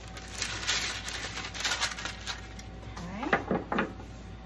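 Parchment paper rustling and crinkling as it is handled, with a few light clicks, for the first two and a half seconds.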